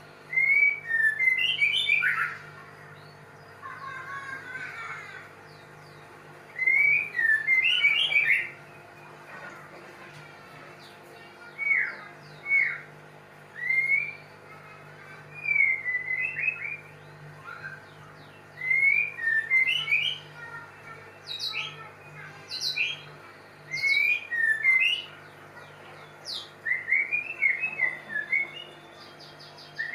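White-rumped shama singing: short phrases of clear whistled, gliding notes, one about every two seconds, over a steady low hum.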